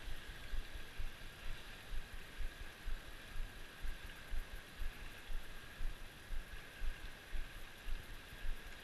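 Fast river water rushing steadily over rocks, with low irregular bumps about twice a second from wind or handling on the microphone.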